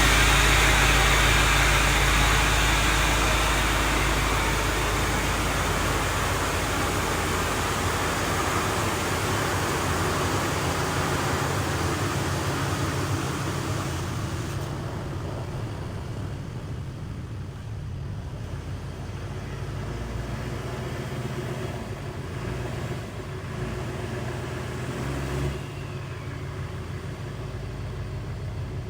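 Chevy pickup truck engine running after a cold start, a steady low drone that is loudest at first and fades gradually.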